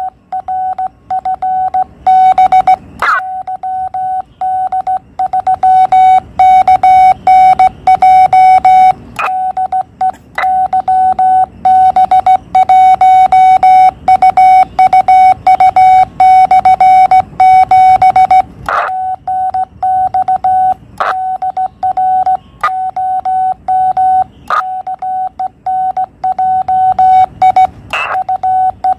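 Morse code (CW) sent by hand on a straight key. It is heard as the Yaesu FT-817 transceiver's single-pitch sidetone beeping on and off in dots and dashes, with a few sharp clicks now and then.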